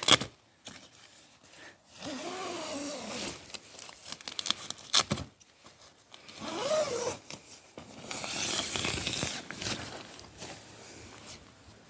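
Tent door zips being pulled open, with two longer zipping pulls, a few sharp clicks and fabric rustling between them.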